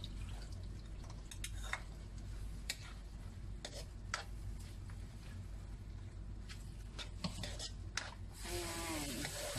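Wooden spoon stirring a sauté of tomato, bell pepper and green peas in a non-stick wok, with scattered sharp clicks and scrapes of the spoon against the pan over a steady low hum. A sizzle grows louder near the end.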